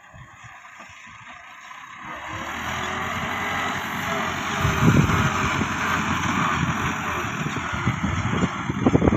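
Massey Ferguson 375 tractor's diesel engine running as the tractor drives along pushing soil with its front blade, growing louder after about two seconds as it comes closer.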